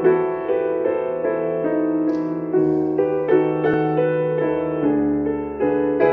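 Grand piano playing a slow, soft passage of held chords, with new notes struck about twice a second.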